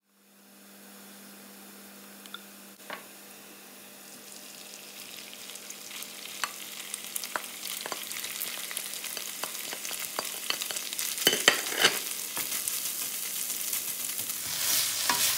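Shredded chicken sizzling as it is tipped into a hot wok and stirred with a spatula. The sizzle starts faint, builds steadily and grows loudest near the end, with sharp clicks and scrapes of the spatula on the pan, the loudest a little past the middle.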